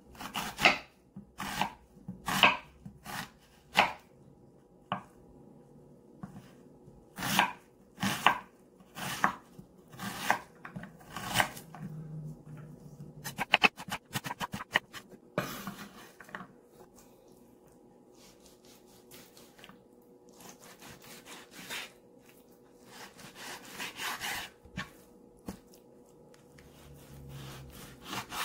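Chef's knife chopping an onion on a wooden cutting board: sharp knocks of the blade striking the board, in quick irregular runs. About halfway through, the knocks give way to softer, quieter strokes of the knife slicing through raw pork, with a few knocks on the board near the end.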